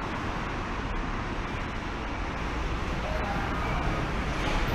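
Steady city street noise, mostly traffic, with faint voices briefly about three seconds in.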